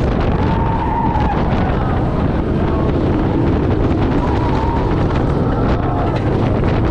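Zadra hybrid roller coaster train running at speed on its steel track, with a steady rumble and rapid clatter from the wheels. Heavy wind rushes over the onboard microphone throughout.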